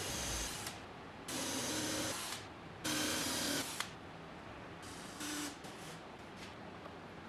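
Cordless drill running in short bursts as it bores holes into a block of wood, with a steady motor whine: three bursts of about a second each, then a briefer one about five seconds in.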